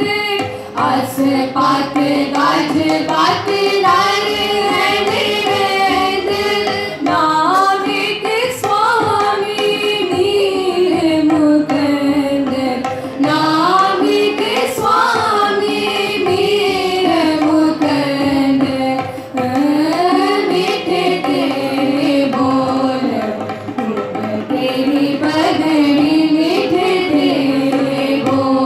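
Women singing a Sikh devotional hymn (shabad kirtan), the sung melody gliding up and down, accompanied by tabla.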